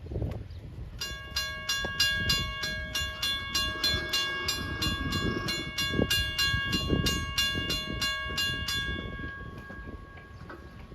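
Grade-crossing warning bell ringing rapidly, about four strokes a second, as the crossing signals activate for an approaching train; the strokes stop near the end and the ring fades out.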